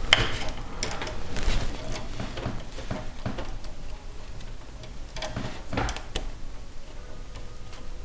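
Plastic PCIe power connector and sleeved cable being handled and fitted to a graphics card's power socket: scattered small clicks and rustles at an uneven pace.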